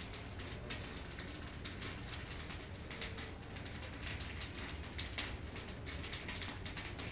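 Havan fire crackling in a metal fire pit, with irregular snaps that come thicker after about four seconds, over a steady low hum.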